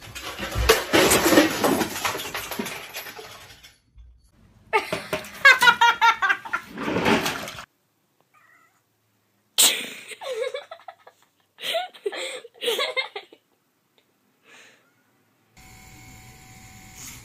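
A clatter, then cats yowling and meowing in several short bouts. Near the end, a pet nail grinder's small motor starts a steady whine.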